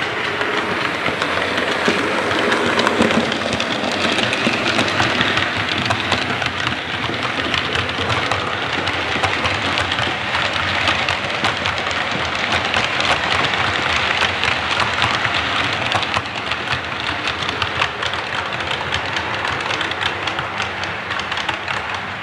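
Model railway trains running on the layout track: a steady rumble of wheels on rail with many small clicks.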